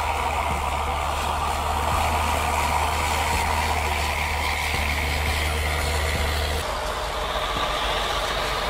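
Rotary snowplow train at work, pushed by locomotives: a steady heavy engine drone under a loud rushing noise. The low drone drops away about two-thirds of the way through.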